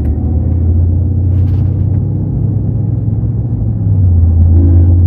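Steady low rumble of a car driving, heard inside the cabin: road and engine noise. It grows a little louder near the end.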